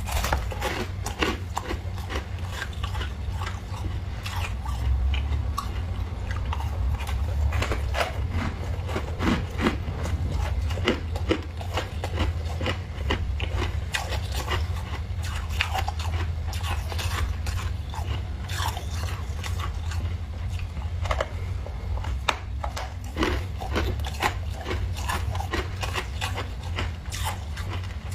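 Thick freezer frost being scraped, giving irregular crunching and crackling scrapes, with a steady low hum underneath.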